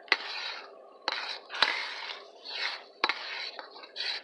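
Metal ladle clinking and scraping against a wok about five times as it stirs, with hot oil sizzling in a hiss after each stroke.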